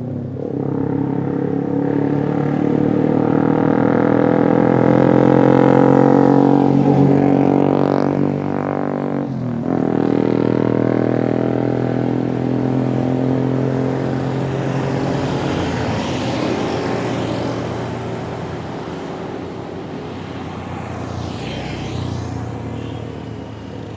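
Motor vehicle engines on a busy road, a deep droning hum that swells to its loudest about six seconds in. It breaks briefly near the middle as one vehicle passes, then another engine carries on, with lighter tyre rushes later as more traffic goes by.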